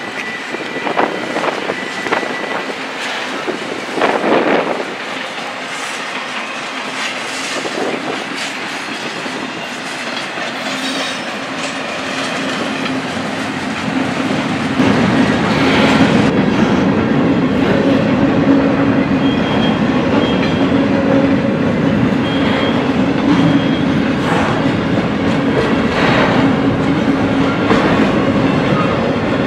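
Double-stack intermodal freight cars rolling past, their wheels clacking over the rail joints. The sound gets louder about halfway through, and a steady hum comes in.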